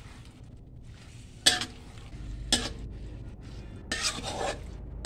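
A metal spatula stirring chicken pieces in sauce in a wide aluminium wok over a low sizzle. It knocks sharply against the pan about a second and a half in and again a second later, and makes a longer scrape near the end.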